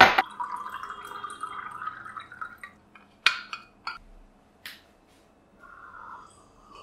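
Water poured into a clear drinking glass, starting with a sharp clink and a filling sound that rises a little in pitch for about two and a half seconds. A few sharp clinks follow, then softer sounds of drinking from the glass near the end.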